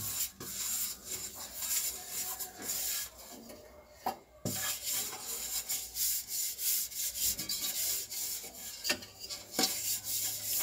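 Fingers rubbing ghee around the inside of a metal cake tin: repeated scratchy rubbing strokes on the metal, with a short pause about four seconds in.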